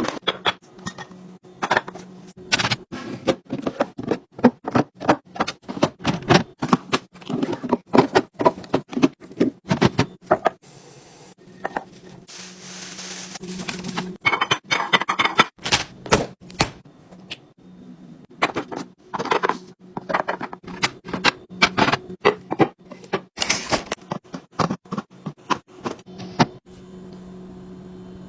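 Rapid, irregular clicks and clacks of containers, bottles and lids being handled and set down while a refrigerator is restocked, with a longer rustling hiss in the middle and a faint steady low hum underneath.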